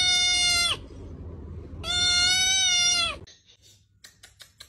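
Tabby kitten meowing loudly in long, level-pitched cries: one ends just under a second in and another follows about a second later, lasting over a second. Near the end there are a few faint clicks.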